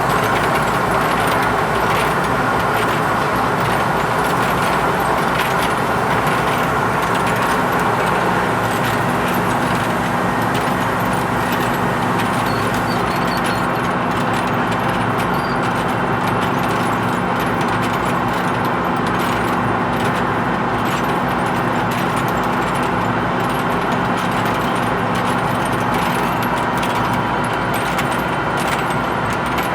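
Lathe running steadily while turning a large pot-bearing part: a constant machine hum made of several steady tones, with faint crackling ticks up high that grow clearer in the second half.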